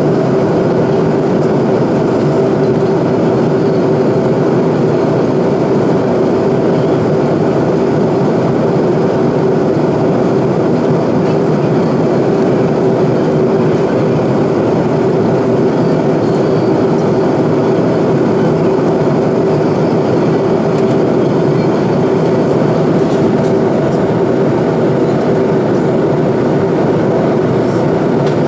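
Steady in-flight cabin noise of an Airbus A330-200 with Rolls-Royce Trent 700 engines, heard inside the cabin: a constant rush of airflow and engine drone with a steady hum running through it.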